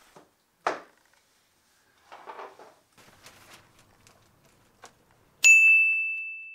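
A few faint knocks and a short rustle, then about two-thirds of the way in a single loud bell-like ding that rings at one clear pitch and fades slowly.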